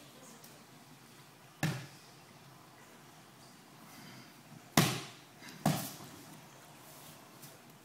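Aikido breakfalls and mat slaps: an aikido partner's body and hands smacking a padded dojo mat as they are pinned and thrown. There are three sharp slaps, one about a second and a half in, then two close together near the end, the first of those two the loudest.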